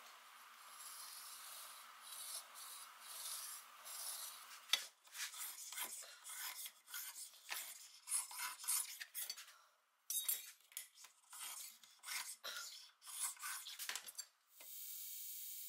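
Steel knife blade being handled on a stone surface plate: a soft brushing of layout dye for the first few seconds, then a run of light clinks and scrapes of metal on stone. Near the end the sound changes abruptly to a steady hiss.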